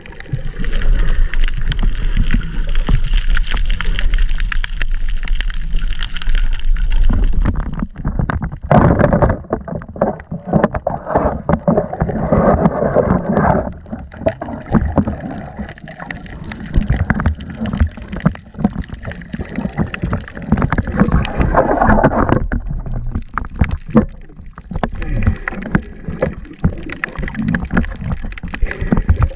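Muffled underwater sound: water churning and gurgling, steady for the first seven seconds or so, then louder and choppier with many clicks and knocks while a speared fish is handled.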